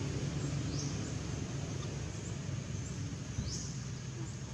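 Steady low outdoor rumble with a few short, high chirps, one about a second in and a louder one past three seconds.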